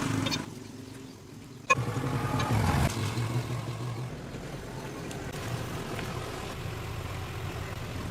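A small gasoline engine that comes in suddenly about two seconds in and then runs steadily with a low, even hum.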